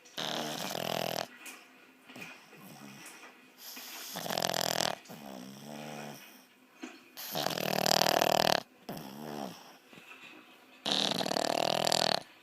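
Pug snoring in its sleep: four loud snores about three and a half seconds apart, each lasting about a second, with softer breaths between them.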